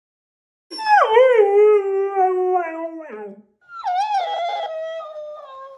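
A husky-type dog gives one long howl that starts high, wavers and settles into a held tone; after a short gap a mimicking cactus toy plays the howl back at a higher pitch, with the same shape.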